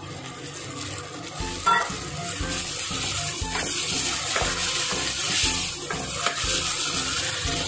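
Red lentils poured onto sautéed garlic and onion in a hot pot, then stirred with a wooden spatula: frying sizzle that grows louder a couple of seconds in, with the spatula scraping through the lentils.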